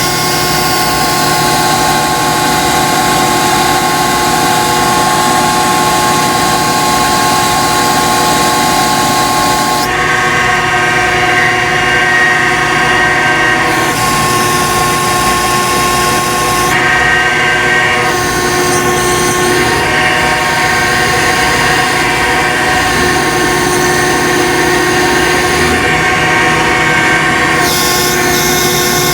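Loud, steady mechanical drone made up of several held tones, with the hiss above it changing every few seconds.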